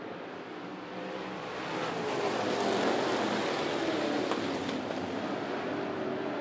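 A pack of dirt late model race cars' V8 engines running at speed, swelling as they go by about two seconds in, with the engine note falling as they pass.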